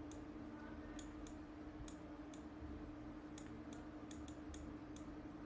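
Computer mouse button clicking about a dozen times at irregular intervals, sharp and light, as strokes are drawn on screen. A faint steady hum runs underneath.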